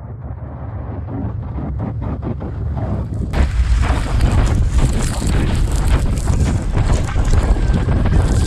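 Rushing wind and spraying snow on a snowboarder's camera during a fast descent through powder, with wind buffeting the microphone. The rush builds steadily and jumps suddenly louder about three seconds in, then stays loud.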